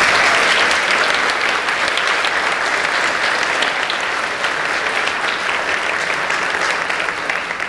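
Audience applauding: a dense clapping that gradually eases off toward the end.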